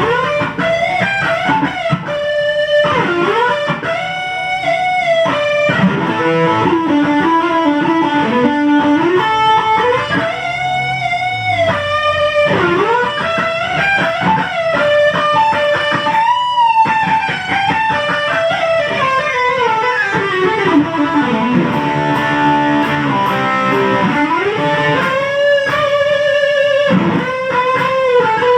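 Electric guitar played through a Kemper profiling amplifier: a melodic lead line of sustained notes with string bends and vibrato.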